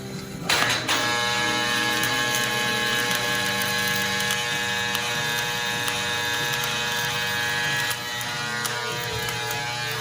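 A power tool's steady electric buzz, starting abruptly about half a second in and easing slightly near the end, during work on an aluminium crawfish boat; background music plays underneath.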